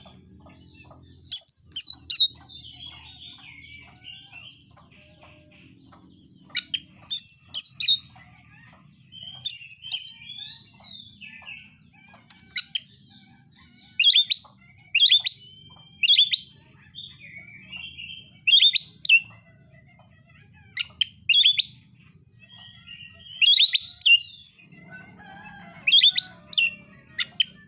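Oriental magpie-robin (kacer) singing: loud clusters of sharp, high whistled notes every two to three seconds, with quieter warbling phrases between them.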